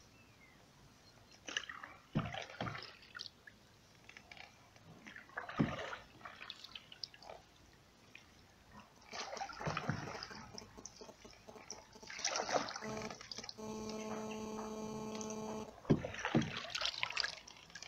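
Canoe paddling on calm canal water: a double-bladed paddle dips on alternate sides, giving irregular splashes and drips. About three-quarters of the way through, a steady pitched tone sounds for about two seconds.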